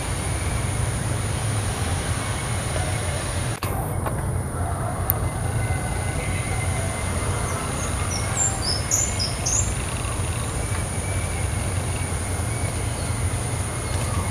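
Steady low rumble of outdoor background noise with a thin high whine over it, and a short run of quick, high bird chirps about eight to ten seconds in.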